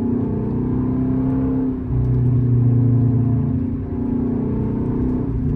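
Dodge Charger R/T Daytona's 5.7 Hemi V8 heard from inside the cabin while driving, a steady engine drone that dips briefly about two seconds in and then comes back stronger, as if the throttle is opened again.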